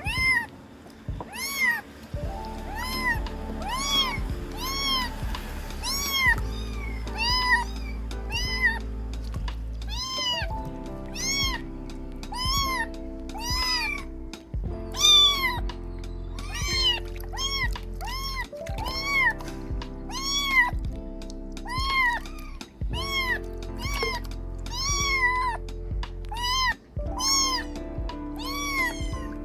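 Kittens meowing in quick succession, more than one call a second, each call a short high cry that rises and falls in pitch, over steady background music.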